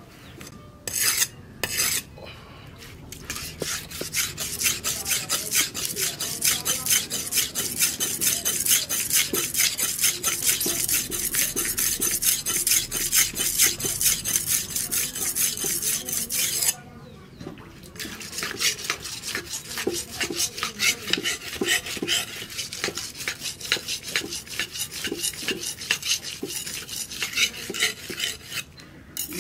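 A steel knife blade forged from a plough disc is rubbed back and forth on a flat sharpening stone in rapid, even scraping strokes. The strokes stop for about a second partway through, then start again.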